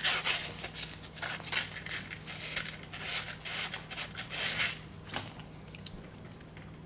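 Fine 600-grit sandpaper rasping in short strokes, about three a second, as it is twisted around a 6.0L Powerstroke injector's steel spool valve to sand off varnish behind stiction. The strokes grow fainter and stop about five seconds in, with one small click just after.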